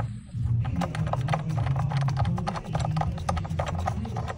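Rapid, irregular clicking and knocking, several times a second, as a new car battery is worked into place in its tray.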